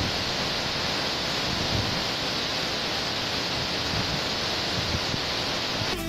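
Waterfall: the steady, even rush of falling water, with no change in level.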